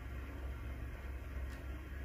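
Steady low hum and hiss of an aquarium's aeration running, with air bubbles streaming up through the water. A faint tick sounds about one and a half seconds in.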